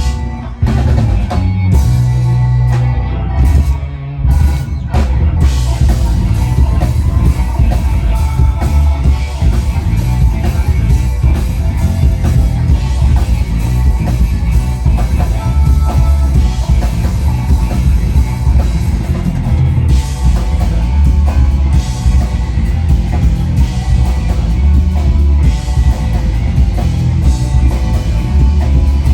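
Live rock band playing an instrumental groove: electric bass, electric guitar and drum kit. A few short breaks come in the first seconds, then the full band settles into a steady groove.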